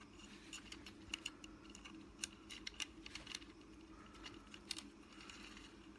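Scattered light clicks and taps of hands working the plastic shell and antenna cables of an opened DJI Phantom 3 SE remote controller, over a low steady hum.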